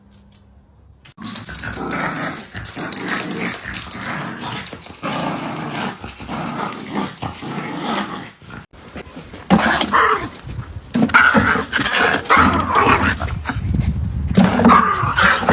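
Dog growling and barking, starting about a second in and going on almost without pause.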